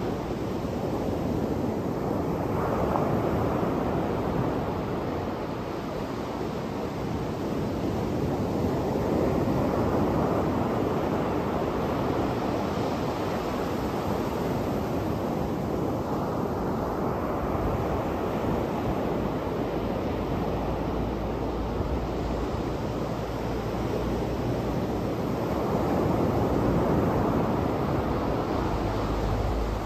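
Surf breaking on a sandy beach: a steady wash of waves that swells louder every several seconds as a wave breaks.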